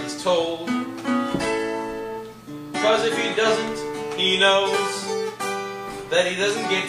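Two acoustic guitars playing a song together, with a voice singing at the start and again near the end.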